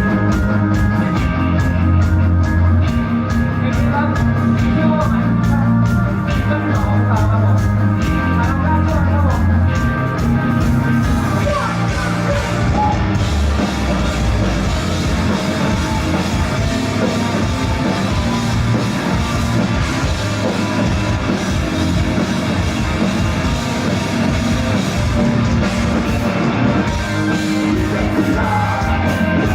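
Live rock band playing loud and fast, with distorted guitars, bass and a pounding drum kit.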